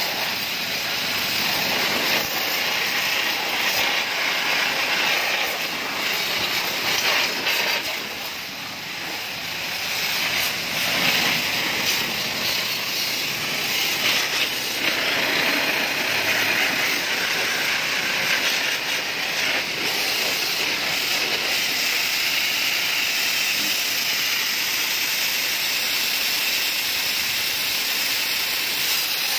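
High-pressure washer spray hissing steadily as the jet hits a motorbike's rear wheel and exhaust, with a short dip about eight seconds in.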